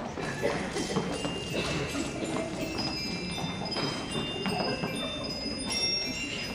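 Bright, bell-like chime tones, several overlapping and held, coming in about two seconds in over a low room murmur.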